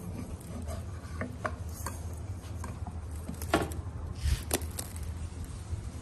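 A series of light knocks and clicks from hard parts being handled, the two loudest about three and a half and four and a half seconds in, over a low steady hum.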